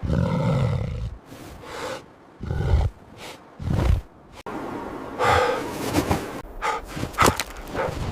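Wolves growling and snarling: three deep growls in the first four seconds, then a longer run of snarls.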